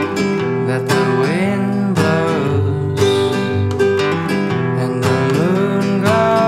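Song-intro music led by a strummed acoustic guitar playing chords in a steady rhythm, with a few sliding notes.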